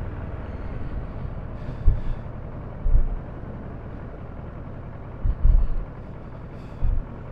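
Steady road and engine noise from inside a moving vehicle, with a few short low thumps scattered through it, around two and three seconds in and again near the end.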